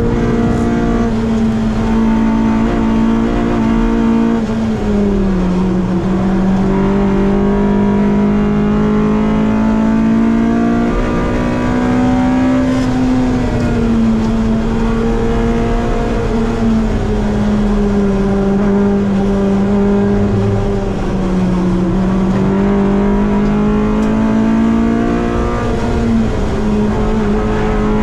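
Honda Civic race car's B-series VTEC four-cylinder engine running at high revs under hard driving, heard from inside the cockpit. Its pitch drops about five seconds in, climbs slowly again, sags once more later on, and jumps back up near the end.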